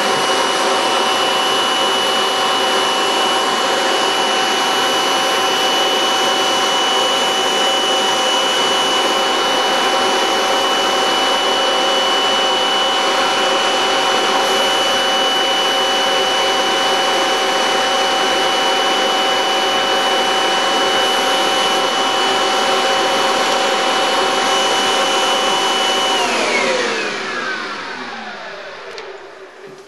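Vacuum cleaner running steadily with a high whine, then switched off about 26 seconds in, its motor winding down with a falling whine and fading out.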